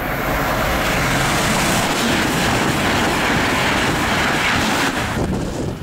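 Amtrak passenger train passing close by at high speed: a loud, steady rush of wheel, rail and air noise that cuts off suddenly near the end.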